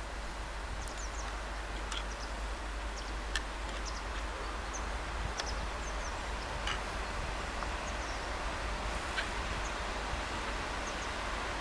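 Outdoor ambience: a steady rushing hiss that grows slowly louder, with short scattered bird chirps and a few faint clicks.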